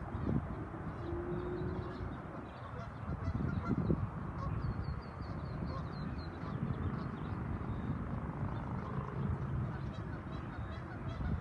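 Geese honking on a lake, with a run of high thin chirps about halfway through, over a steady low rumble.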